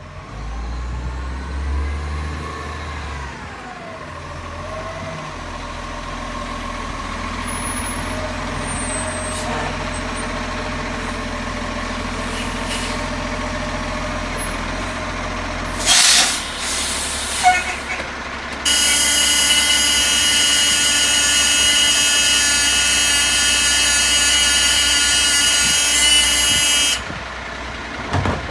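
Garbage truck running, with a whine that rises and falls in the first few seconds and two sharp air brake hisses about halfway through. Then a loud, steady buzzing hiss comes on for about eight seconds and cuts off suddenly.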